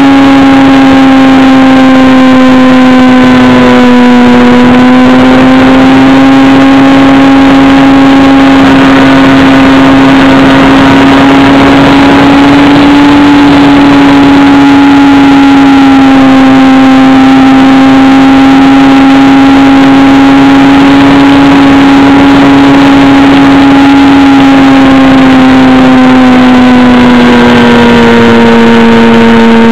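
Electric motor and propeller of a Techone Angel EPP foam RC plane heard from a camera on board: a loud, steady hum whose pitch wavers slightly with throttle, dipping briefly about four seconds in and dropping a little near the end, over a rush of air past the microphone.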